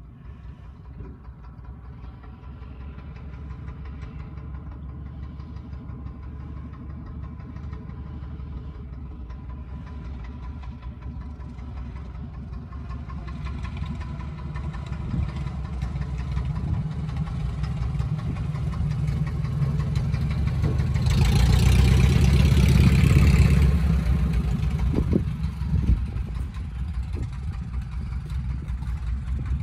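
1945 Luscombe 8A's small four-cylinder Continental engine and propeller running at low taxi power, growing steadily louder as the airplane approaches. It is loudest for a few seconds as it passes, about two-thirds of the way in, with a rush of propeller wash, then eases off a little.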